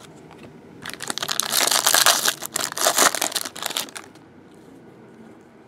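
A shiny foil trading-card pack wrapper being torn open and crumpled by hand: a dense crackling that starts about a second in and stops about four seconds in.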